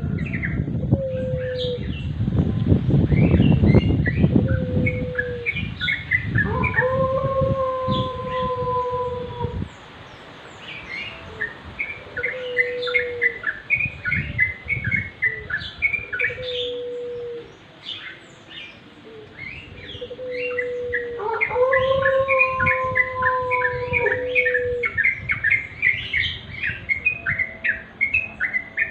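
Yellow-vented bulbuls (cucak trucuk) chattering in rapid runs of short chirps. A lower, level whistled note comes back every few seconds. A low rumbling noise fills the first ten seconds or so.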